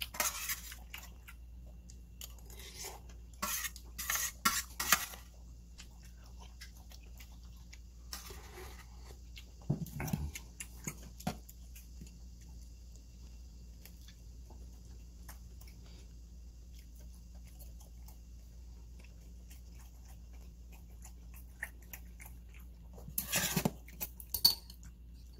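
Eating sounds: a metal spoon clinks and scrapes against a metal lunchbox tin while noodles are scooped up, with chewing. This is followed by long quiet stretches and a short burst of louder clicks and mouth sounds near the end.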